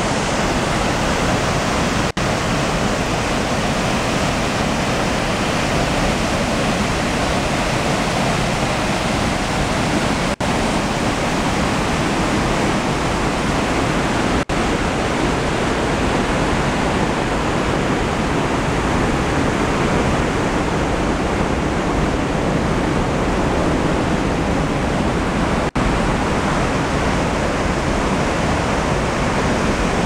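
Steady rush of a whitewater creek cascading over boulders into a pool, broken by four momentary dropouts.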